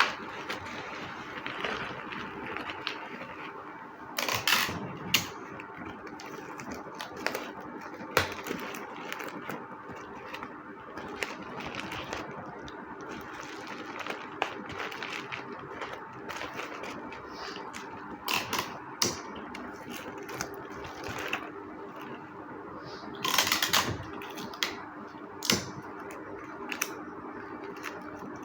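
Packing materials being handled at close range: cardboard and padding tapped, pressed and rustled in scattered clicks and taps, with two longer scraping rasps, one about four seconds in and one near the end, over a steady low hum.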